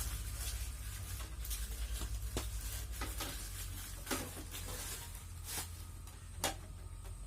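Small miniature toy kitchen pieces being handled and set down, making scattered light clicks and taps, about one every second, over a steady low hum.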